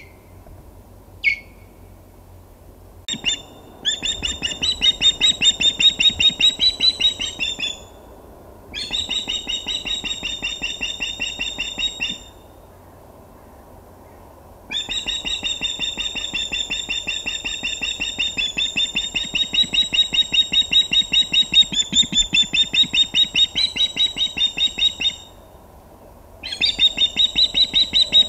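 Osprey alarm calls: two short single calls, then long bouts of rapid repeated calling with short pauses between. It is the call that means another osprey is too close to the nest.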